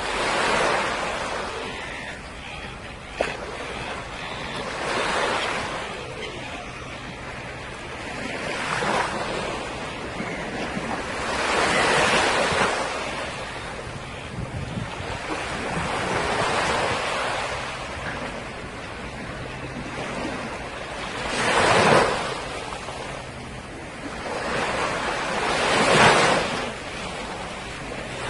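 Small waves breaking and washing onto a beach, swelling and fading every few seconds, with wind on the microphone. A brief click about three seconds in.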